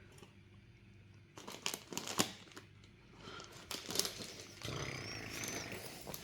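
Packaging of a LEGO set being handled: quiet at first, then intermittent crinkling and rustling with a few sharp clicks from about a second and a half in.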